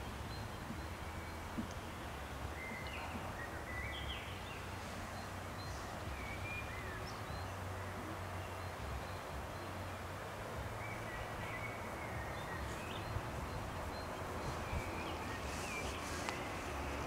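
Small birds chirping in short, scattered calls over a steady low rumble of outdoor background noise.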